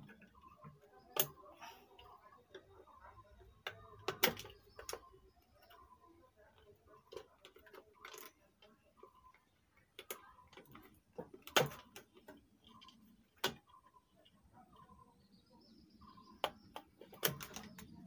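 Irregular sharp clicks and light knocks of a circuit board being unplugged and pulled out of a power amplifier chassis by hand, the loudest about four seconds in.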